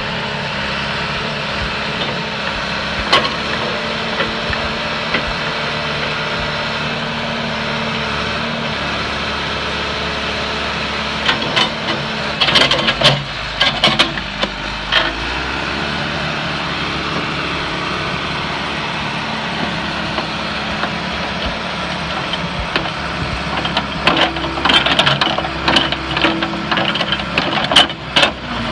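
Backhoe engine running steadily. About halfway through and again near the end come spells of sharp clanks and knocks.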